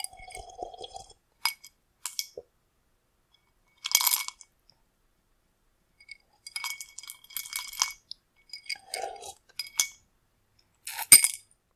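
A drinking glass clinking and rattling in about a dozen short, separate bursts with a bright glassy ring, the loudest near the end.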